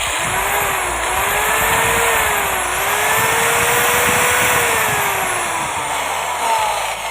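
Electric marble cutter's universal motor running free after a new field coil and bearings have been fitted, giving a loud whine whose pitch wavers slightly up and down. The pitch sags near the end.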